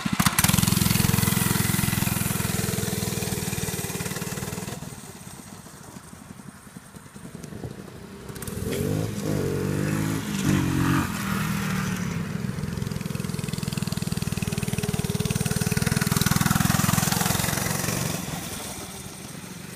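Small mini bike and pit bike engines, an 80cc Monster Moto and a Lifan 110, running and being revved. The engine sound is loud at first and drops off for a few seconds. About nine seconds in the revs rise and fall, and then the engines run steadily again.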